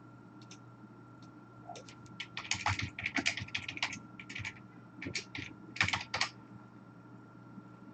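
Typing on a computer keyboard: quick runs of key clicks starting about two seconds in, a short pause, then a last run ending about six seconds in.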